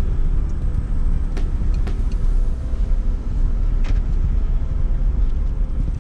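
A car driving: a steady low rumble of engine and road noise, with a few faint sharp ticks.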